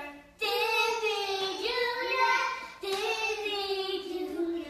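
A young child singing in long held notes, with short breaths just after the start and again just before three seconds in.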